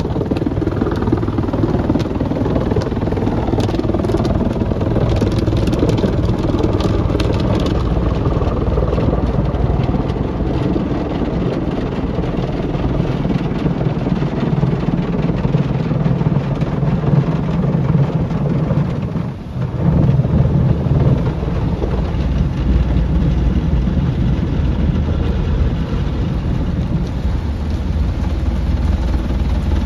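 Automatic car wash heard from inside the car's cabin: rotating brushes and water sprays working over the body and windscreen make a steady low rumble, which drops away for a moment about two-thirds of the way through.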